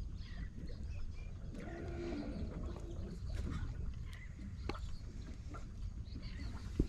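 Steady low wind rumble on the microphone, with a faint animal call about two seconds in and a single sharp click near the end.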